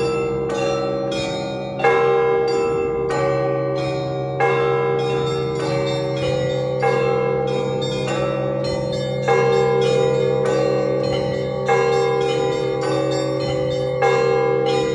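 Russian Orthodox church bells rung in a full peal (zvon): quick strokes of smaller bells, several a second, over a heavy bell struck about every two and a half seconds, all ringing on into each other.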